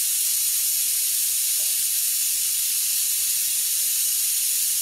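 Stovetop pressure cooker whistling: a loud, steady hiss of steam escaping past its weighted valve as the cooker comes up to pressure with rice cooking inside.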